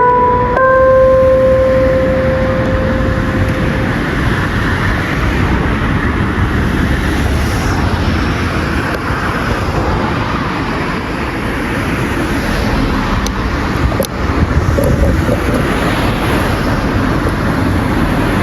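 The final held note of a municipal disaster-prevention loudspeaker chime, a UNIPEX outdoor horn speaker, sustains and dies away over the first four seconds. After it comes a steady rush of outdoor traffic noise.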